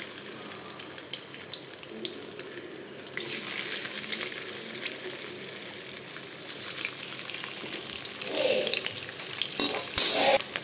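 Paneer cubes sizzling and crackling in hot oil in a kadhai. The sizzle gets louder about three seconds in as more cubes go into the oil. Near the end a metal slotted spoon scrapes and knocks once against the pan.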